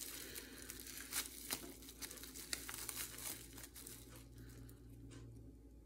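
Thin clear plastic wrapping crinkling as it is handled and pulled open by hand: quick, irregular crackles that grow sparser toward the end.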